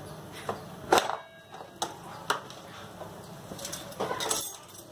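Several sharp clicks and knocks over a low steady hiss: the loudest about a second in, two lighter ones soon after, and a short cluster near the end.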